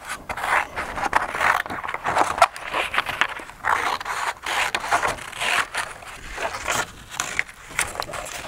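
Scissors cutting through black paper in a run of short snips, roughly one or two a second, with a few sharp clicks of the blades.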